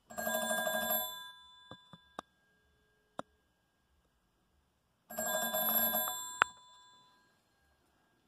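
The twin-gong ringer of a 1900s Cracraft-Leich wooden wall telephone ringing in two short bursts of rapid clapper strikes, each about a second long and about five seconds apart, the bells ringing on and fading after each burst. A few sharp clicks fall between the bursts.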